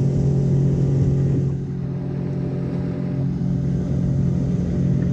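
Bass boat outboard motor running at a steady speed, an even engine drone with a low rumble.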